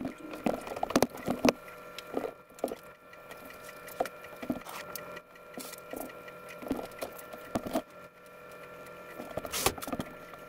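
Prusa XL 3D printer running its tool offset calibration: the stepper motors whine steadily in several tones while the toolhead moves, with irregular clicks and taps from the moving mechanism.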